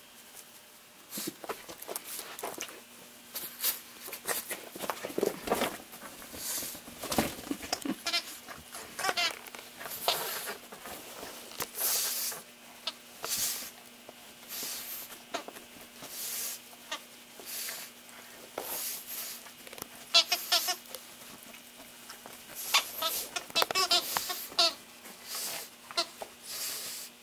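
Plush squeaky gecko toy squeaking in short, repeated bursts while a pug chews it, with scuffling of the toy's fabric between squeaks.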